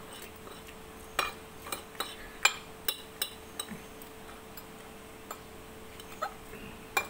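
Metal fork and spoon clinking and scraping against a ceramic plate, about a dozen sharp clinks, most in the first half and a few more near the end, over a faint steady hum.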